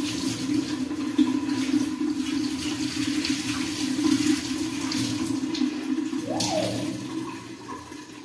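Water running steadily, then dying away near the end.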